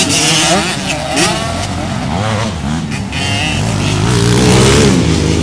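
Several motocross minibike engines revving hard as the riders race along the dirt track, their pitch climbing and dropping with each throttle change and gear shift. It gets louder toward the end as the bikes come closer.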